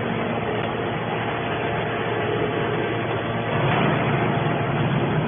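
A machine running steadily: a dense mechanical drone that grows a little louder about two-thirds of the way through.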